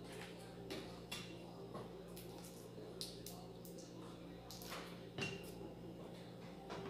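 Faint scattered clicks and taps of small craft items handled on a tabletop, with a brush working on a plastic plate, over a steady low hum.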